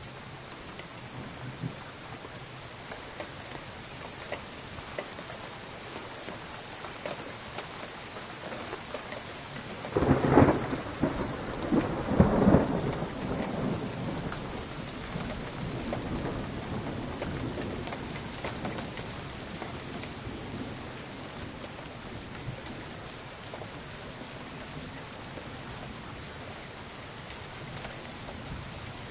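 Steady rain with a thunderclap about ten seconds in: two loud cracks about two seconds apart, then a rumble that rolls off over the next several seconds.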